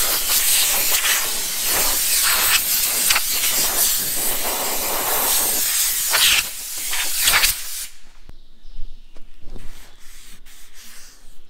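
Angle grinder with a thin flap disc grinding weld spatter off a welded steel repair: a loud steady hiss with brief dips as the disc is eased off. It stops about eight seconds in, leaving a few light clicks.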